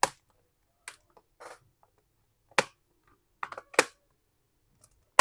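Bottom cover of a Lenovo ThinkPad T590 being pried off by hand, its snap-in clips popping loose one after another: a string of sharp, irregularly spaced clicks.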